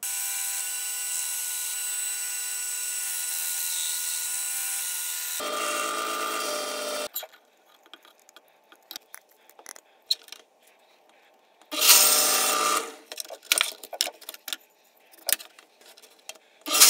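Belt sander running with a steady whine for about five seconds, then two short, coarser bursts of sanding, around six and twelve seconds in, with light clicks and knocks of handling between. The sander is shaping the angled edges of a wooden saw-table insert to fit its opening.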